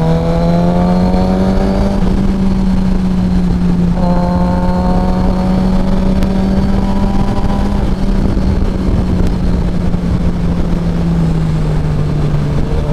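Suzuki GSX-R 1000 inline-four engine running steadily under way, heard from on board the moving bike with heavy wind rush. Its pitch climbs gently over the first couple of seconds and again from about four seconds in.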